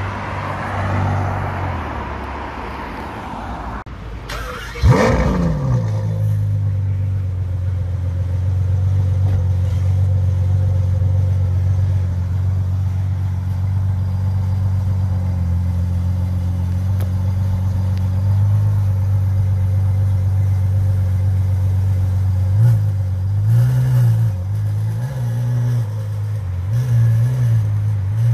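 A car drives past, then the V12 of a Ferrari 812 Superfast starts about five seconds in with a sharp rising flare and settles into a steady low idle. Over the last few seconds it takes light throttle blips, rising and falling, as it pulls slowly away.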